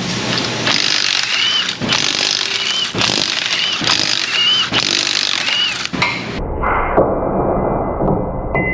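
Impact wrench hammering on the lug nuts to take a car's wheels off, in several runs. About six seconds in the sound changes abruptly to a duller, lower rumble.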